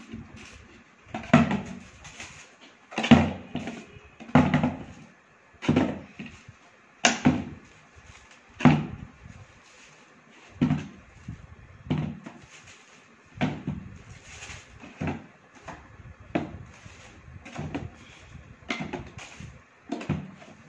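Potatoes dropped one at a time into a large plastic bottle, each landing with a short knock, about one every second and a half. The knocks are loud at first and grow softer in the second half.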